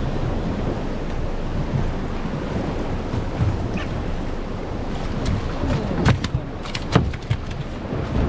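Wind buffeting the microphone over choppy sea and waves washing around a small open boat. A few sharp knocks and clatters come near the end, the loudest two about a second apart.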